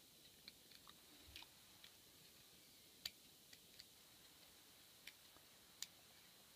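Faint, irregular metallic clicks of a lock pick working the pin stack of an ABUS 83AL/45 padlock under tension, as security pins (spools and barrel pins) are felt out and set one by one. About a dozen scattered clicks, the loudest about three seconds in and again near the end.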